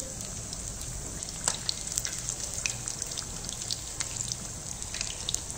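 Besan-battered stuffed green chilli pakoras deep-frying in hot oil in a kadhai: a steady sizzle with scattered crackles and pops.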